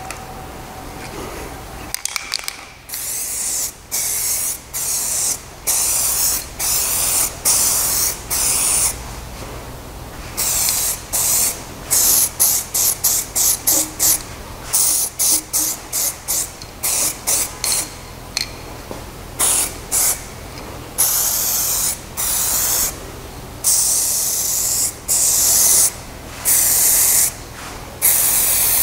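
Aerosol can of Motip heat-resistant spray paint hissing in many short and longer bursts, starting about two seconds in, as a car exhaust silencer is coated.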